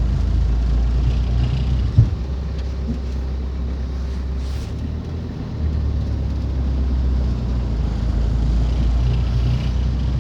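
Mitsubishi L300 Delica 4x4 van running, with a steady low drone. There is a single sharp knock about two seconds in, and the drone drops briefly around the middle before picking back up.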